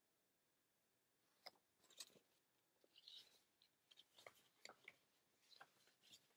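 Near silence: room tone with a few faint, scattered ticks and one short click near the end.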